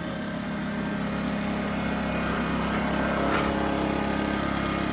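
Small gas-powered inverter generator engine running steadily under a light load, its hum slowly getting a little louder. The RV air conditioner's compressor has not kicked in yet.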